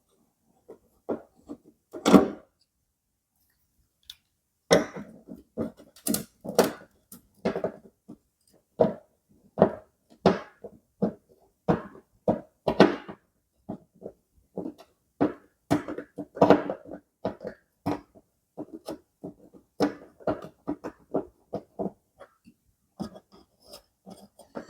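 Screwdriver turning out the screws of a car's number plate holder: short clicks and scrapes at an uneven pace, with a silent pause of about two seconds near the start.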